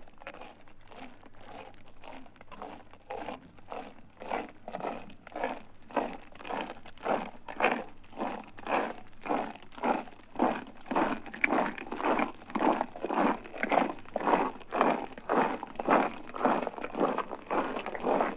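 Footsteps crunching at a steady walking pace, about two steps a second, faint at first and growing louder as they approach.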